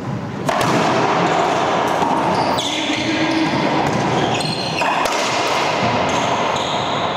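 Racquetball rally in an echoing court: several sharp cracks as the ball is struck by racquets and rebounds off the walls and floor, the first about half a second in.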